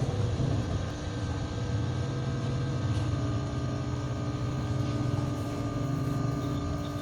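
Small air pump motor of an electronic blood pressure monitor running steadily as it inflates the cuff: a continuous buzzing hum with several steady tones that creep slightly upward in pitch as the pressure builds.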